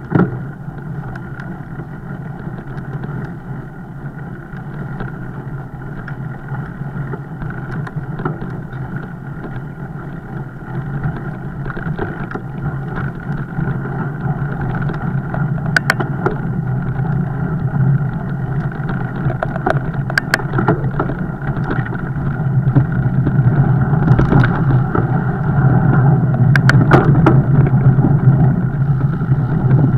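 Steady rolling and wind noise from riding a fat bike, with a low hum and a few sharp clicks, getting louder over the second half.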